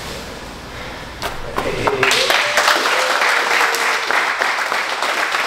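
A group of people applauding, the clapping breaking out loudly about two seconds in.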